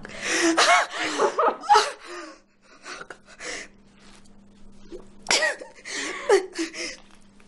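A woman sobbing, with wavering wails and gasping catches of breath in two bouts, the second starting about five seconds in.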